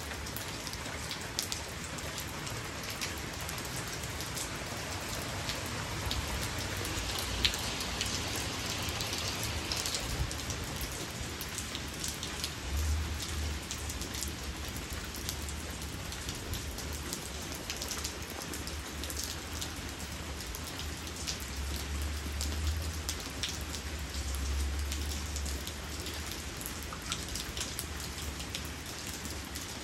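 Steady rain falling on a wet concrete patio and into a puddle, an even hiss with frequent close, sharp drop hits.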